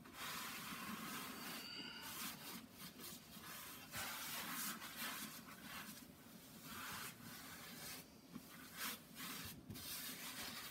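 Damp paper towel wiping across oven door glass, a faint rubbing hiss that comes and goes with each stroke, with short pauses between. The towel is clearing leftover baking soda, vinegar and dish soap cleaning paste off the glass.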